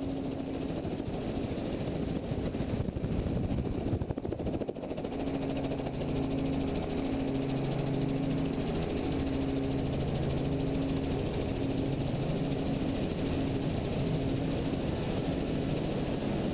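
Helicopter engine and rotor running as the helicopter lifts off and climbs, under a steady rush of wind noise. A low hum settles into a regular pulsing after about five seconds.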